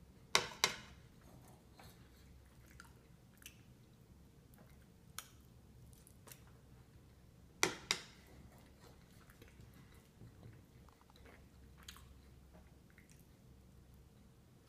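A person eating and chewing close to the microphone, with scattered small mouth clicks. Two loud, sharp double clicks sound just under a second in and again about halfway through.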